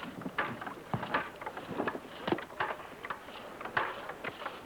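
Horses' hooves clopping in an irregular run of knocks.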